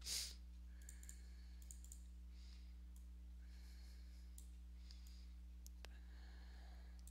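Faint computer keyboard and mouse clicks as a number is typed into a spreadsheet cell, over a steady low electrical hum. A short breathy puff sounds at the very start.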